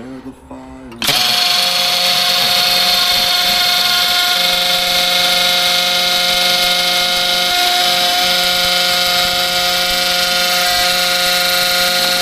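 Power drill's motor running steadily at a constant high speed, with a whine and a hiss; it starts abruptly about a second in.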